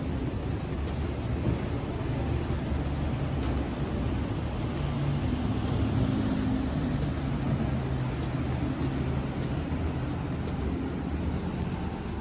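Steady low engine drone, its hum shifting a little in pitch, over a broad hiss of outdoor noise.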